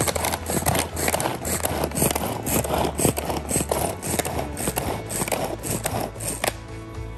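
Pull-cord manual food chopper being worked with quick repeated pulls: its blades spin and rattle chunks of onion and tomato against the plastic bowl, a fast run of clattering strokes.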